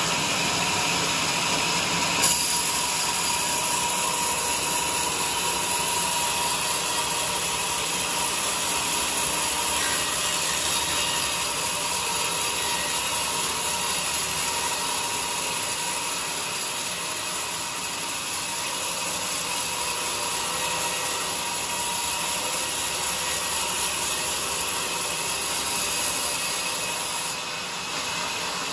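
Sawmill saw cutting through a teak log: a steady, noisy sawing sound with a high whine. The whine comes in with a single sharp knock about two seconds in and drops back near the end.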